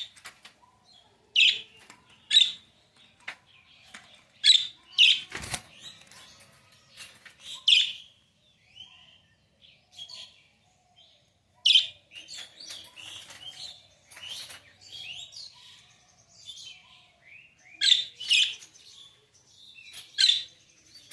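Budgerigars chirping: loud, sharp calls every second or two with softer warbling chatter in between, and a single soft thump about five seconds in.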